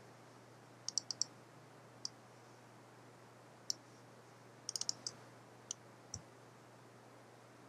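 Computer mouse clicking: scattered sharp clicks, with a quick run of three or four about a second in and again near five seconds. A faint steady low hum runs underneath.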